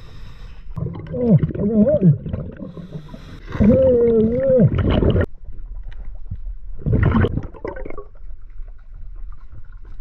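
Scuba diver breathing through a regulator underwater: two long breaths carrying a wavering tone, then a short burst of exhaled bubbles about seven seconds in.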